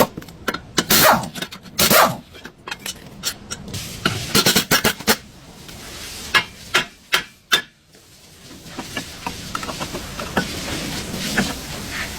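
Irregular sharp knocks and short scraping strokes of hand tools on metal parts. The loudest strikes fall in the first two seconds, with further clusters about four to five and six to seven seconds in.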